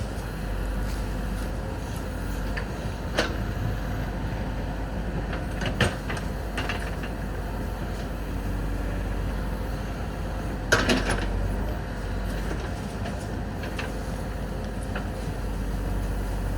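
JCB 3DX backhoe loader's diesel engine running steadily, with a few sharp knocks about three, six and eleven seconds in, the last the loudest.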